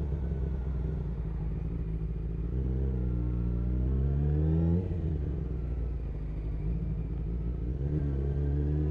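Sportbike engine running at low speed, its revs climbing under throttle for about two seconds, falling off sharply about five seconds in, then rising again near the end.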